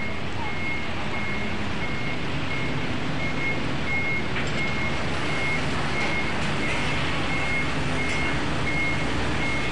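A high electronic beep repeating evenly about twice a second over a loud, steady rumbling noise.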